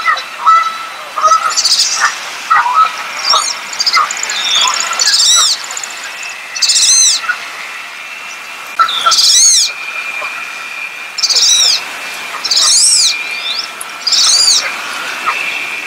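Wood duck calling: a series of high, thin whistled calls, each rising and then falling, about one every one and a half to two seconds from about five seconds in. Before them come mixed lower chirps, and a thin steady tone runs under the middle of the calls.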